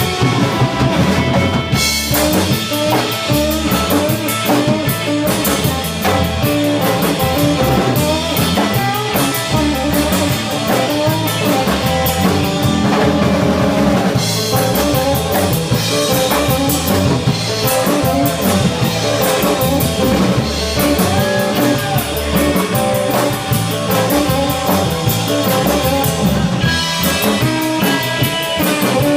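Live instrumental surf rock: electric guitars playing the melody over a drum kit, loud and steady.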